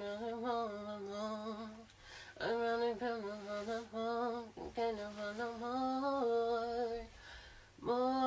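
A woman singing a wordless, hummed melody unaccompanied, in several long held phrases with short breaths between them.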